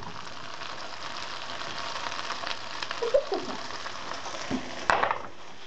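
Hake fish cutlets sizzling in oil in a frying pan, with small clicks of a spatula working among them and one sharp clatter of the spatula against the pan near the end.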